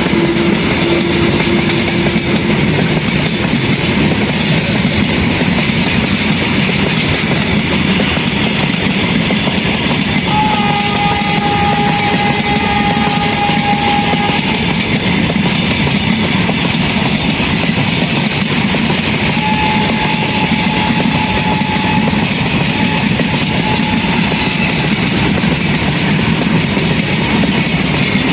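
Goods train wagons rolling past with a steady loud rumble and wheel clatter on the rails. A train horn sounds once for about four seconds around ten seconds in, then twice more, shorter, around twenty seconds in.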